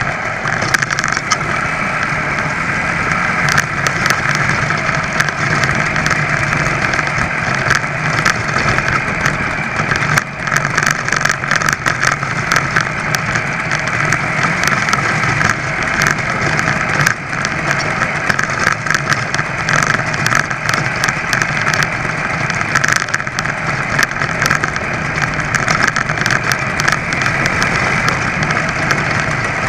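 Small single-cylinder two-stroke clip-on engine of an ABG (Velo) VAP moped running steadily under way, an even, fast buzz that holds its speed throughout.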